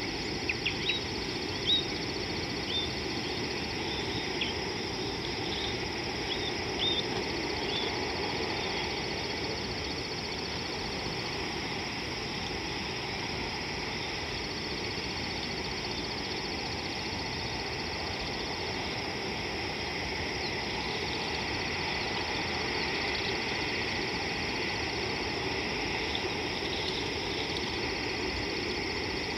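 Steady outdoor bush ambience. Short bird chirps come in the first several seconds, and a faint high insect trill comes and goes.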